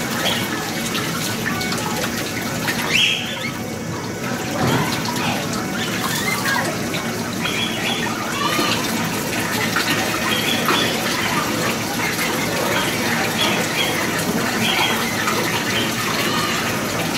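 Water running steadily into a capybara bathing pool, with short high-pitched sounds coming and going over it.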